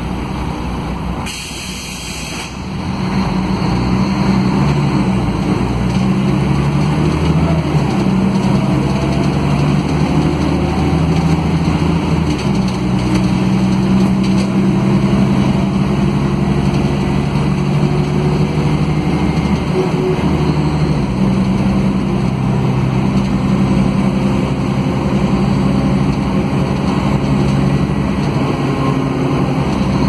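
Cabin sound of a Mercedes-Benz O500 UA articulated bus: a short hiss of air about a second in. Then its OM457LA inline-six diesel picks up and runs under load, with the note changing in steps a few times as the ZF Ecomat automatic gearbox works through the gears.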